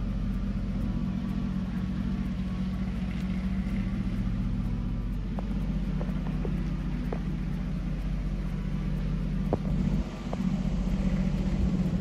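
1995 Mercedes S600's 6.0-litre V12 engine idling steadily, with a few faint ticks.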